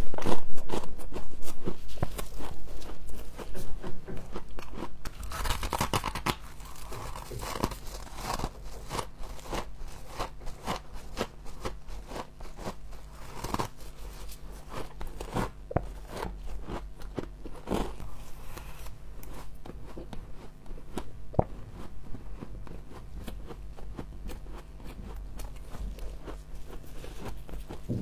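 Humidifier frost being bitten and chewed close to the microphone: a run of crisp crunches and crackles, loudest in the first few seconds, then quieter crunching carrying on.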